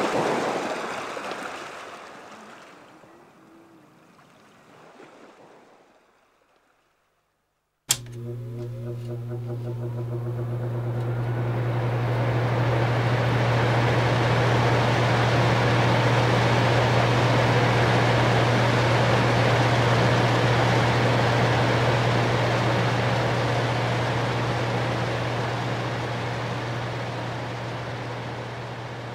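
After a fading sound and a short silence, a steady outdoor roar of ocean surf and wind on the microphone sets in about eight seconds in, with a strong low hum beneath it, swelling and then easing off.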